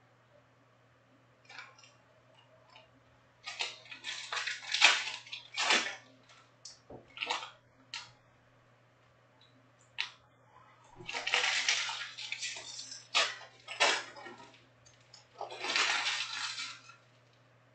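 Stacks of Panini Prizm trading cards being handled and sorted by hand: irregular dry swishes and rustles as cards slide against each other, coming in short bursts with brief pauses between them.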